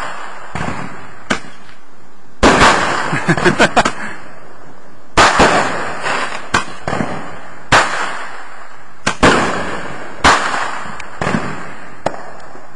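Aerial fireworks bursting overhead: a string of sharp bangs, irregularly spaced about a second apart, with a quick run of small pops a few seconds in.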